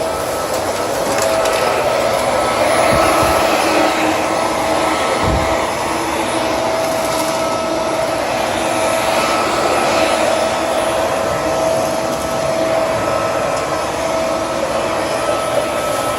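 Shark bagless vacuum cleaner running steadily, with a constant whine over its motor and airflow noise, as it vacuums up crumbs. It is not all that loud.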